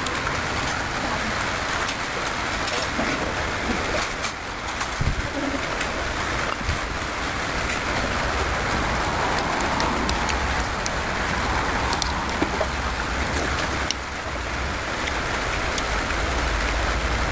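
A steady hiss with scattered small clicks from a man eating with his fingers: chewing and lip smacks.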